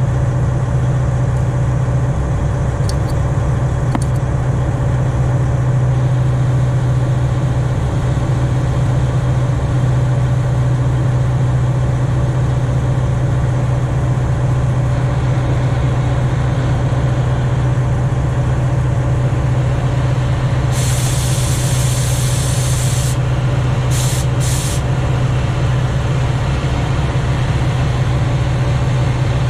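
An engine idles steadily throughout with a deep, even hum; this is the loudest sound. Over it, an oxy-fuel cutting torch hisses faintly once it is lit. Near the end, gas hisses sharply for about two seconds, then twice more briefly, as the torch's cutting-oxygen lever is pressed.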